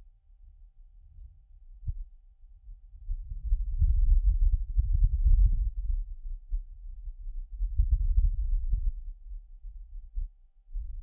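Martian wind picked up by the microphone on NASA's Perseverance rover: low gusts that swell up about three seconds in, ease off, and swell again near eight seconds.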